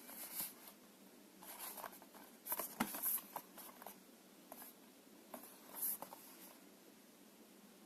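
Packaging being handled: short bursts of rustling and a few sharp clicks and taps, the loudest about two and a half to three seconds in. This is the kind of sound made by unpacking a boxed PC case fan.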